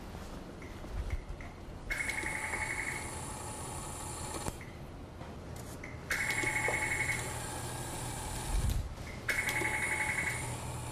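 Electronic buzzing beep from a chimpanzee's touchscreen testing computer, sounding three times for about a second each, over a steady machine hum.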